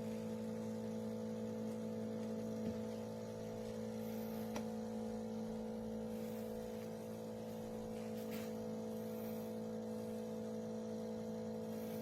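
De'Longhi Rivelia automatic espresso machine running with a steady hum while it dispenses a latte into the cup, with a few faint clicks along the way.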